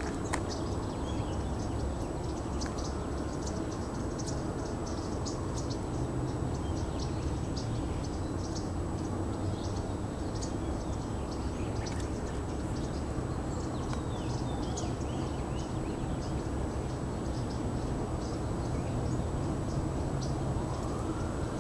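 Birds chirping in scattered short, high calls over a steady low rumble of outdoor background noise.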